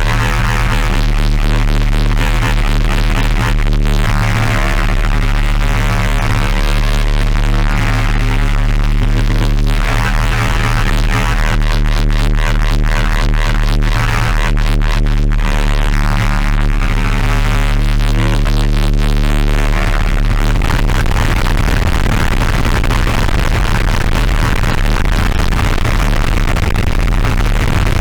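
Synth strings played through the Snowstorm white-noise distortion pedal: a sustained, heavily distorted chord over a strong bass hum. About twenty seconds in, the held tones break up into a noisier, grittier wash.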